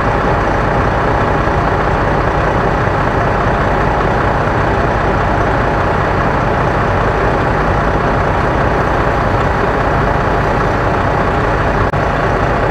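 Fire engine's diesel engine running steadily at high idle, a loud continuous rumble with no change in pitch.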